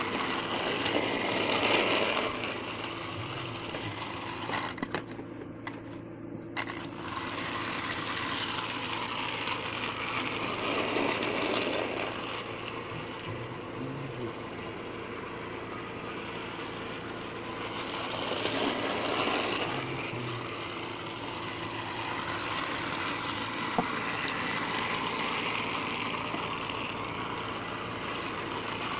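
Plarail battery-powered toy train's small gear motor whirring as it runs along the plastic track. It grows louder and fainter about every eight or nine seconds as it laps the layout, with a few sharp clicks.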